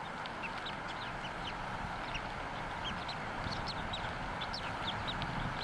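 Newly hatched bald eagle chick peeping: many short, high, slightly falling peeps in quick, irregular succession, over a steady hiss.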